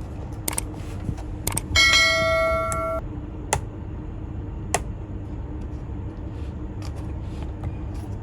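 Scattered sharp clicks and taps from handling a laptop's keyboard and its ribbon-cable connector, over a low steady hum. About two seconds in comes a loud, bell-like metallic ring lasting about a second that cuts off abruptly.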